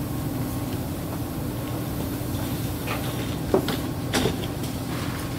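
Inside a Fukuoka City Subway 2000-series car standing at a station: the car's equipment hums steadily, with a few short clicks and knocks around the middle.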